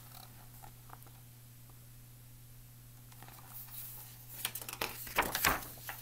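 Quiet room with a low steady hum, then from about three and a half seconds in, rustling and a few soft knocks as a hardcover picture book is handled and its paper pages rustle.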